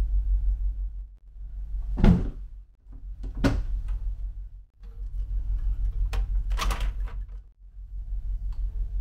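Hinged wooden cupboard doors in a ship's cabin being opened and shut, giving about four sharp knocks and clatters. A steady low hum runs underneath.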